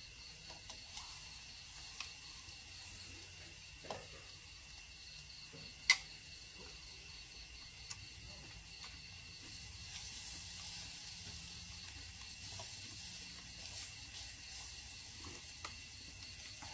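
Low sizzle of pork cooking on a mookata grill-pan under a steady, evenly pulsing insect chorus, with a few sharp clinks of a spoon and tongs against metal bowls, the loudest about six seconds in.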